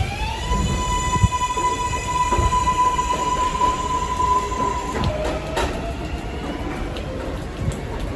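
New York 7 train of R188 subway cars accelerating away from the station: the traction motors whine, finishing a rise in pitch about half a second in and holding one steady high tone until about five seconds in, when it fades as the train recedes. A rumble of wheels on the elevated track runs underneath, with a few sharp knocks after the whine fades.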